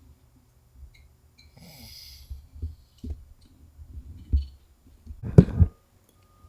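A man snoring in his sleep: irregular low rattling snores, the loudest a long one about five seconds in.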